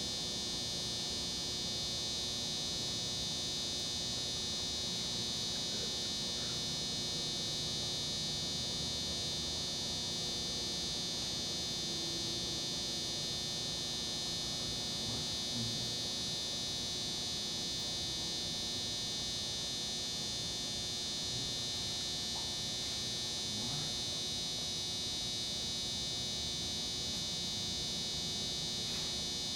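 A steady, high-pitched buzz with many overtones, holding constant, with a few faint ticks from handling.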